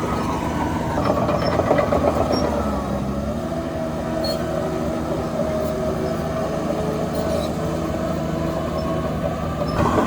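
Heavy earthmoving machine's diesel engine running under load, with a rattly stretch about a second in and the engine pitch sagging briefly a little later.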